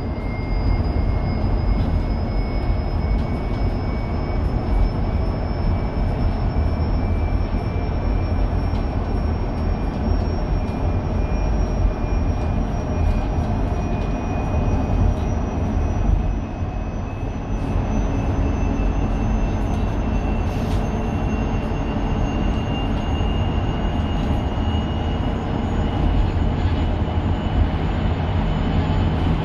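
Mercedes-Benz eCitaro electric bus heard from inside the cabin: a high electric motor whine, in two pitches, rising slowly as the bus picks up speed, over a steady low road rumble.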